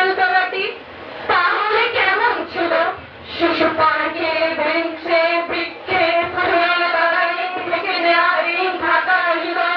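Several girls' voices reciting a Bengali poem together in a drawn-out, sing-song chorus, in phrases of a second or two with short breaks between.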